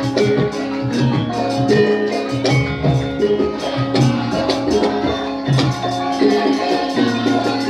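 Live Javanese gamelan music: struck, ringing tuned metal percussion playing a steady stream of notes over a low beat.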